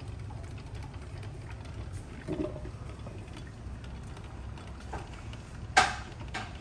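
Drip coffee maker brewing: a low steady hum with faint water sounds, and a sharp click about six seconds in.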